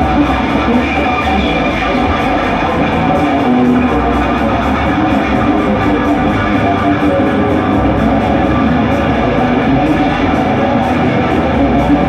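Loud live rock music led by a distorted electric guitar, from a black SG-style guitar, playing an instrumental stretch with no singing. It is heard from the crowd of an arena concert through a phone's microphone.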